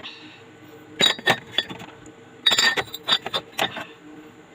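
Bottles and containers clinking and knocking against each other and the refrigerator's shelves as they are put in, in two short clusters of sharp clinks, the second about two and a half seconds in.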